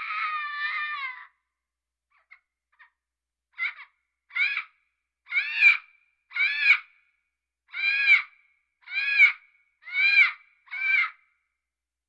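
A parrot calling: one longer, wavering call at the start, then after a short pause about eight short squawks, a little under a second apart, each rising and falling in pitch.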